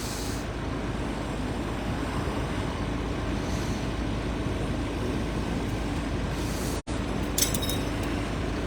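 Steady low rumble of a running vehicle engine, with a brief sudden break about seven seconds in and a few sharp clicks just after.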